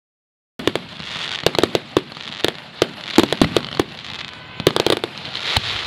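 Silence, then about half a second in an aerial fireworks display cuts in: a dense crackle of bursting shells with many sharp bangs at irregular intervals.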